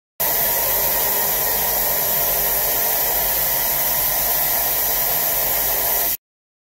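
DMG Mori DMU 80 eVolution 5-axis machining centre running with its rotary table turning: a loud, steady hiss with a few steady hum tones. It starts and stops abruptly.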